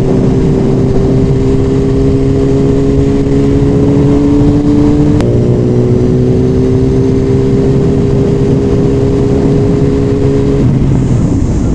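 Motorcycle engine running under way, heard through a microphone inside the rider's helmet. Its pitch climbs slowly, then drops with a click about five seconds in as it shifts up a gear, and climbs again.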